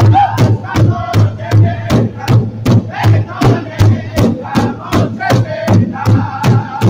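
Powwow drum group: several men strike a large hide-covered powwow drum in unison with drumsticks, a steady beat of about two and a half strokes a second. Over the drum, the men sing together in high voices.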